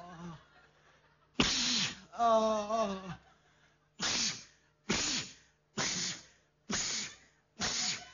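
A person sneezing again and again: one big sneeze followed by a drawn-out voiced moan, then a run of five short sneezes a little under a second apart.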